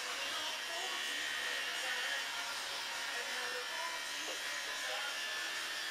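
Electric hair clippers running steadily while trimming short hair at the back of the head.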